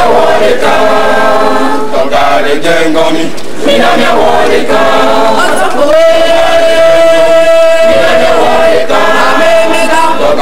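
Choir singing in short phrases. About six seconds in, a long steady note is held for nearly three seconds before the phrases resume.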